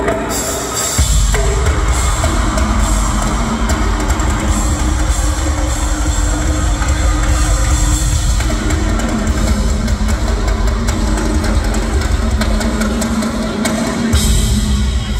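Live rock drum kit in a drum solo, played hard with heavy bass drum and cymbals, amplified through an arena PA. A steady low note is held under the drums from about two seconds in.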